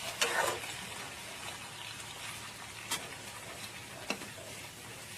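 A steady hissing noise, with a few faint clicks or light knocks.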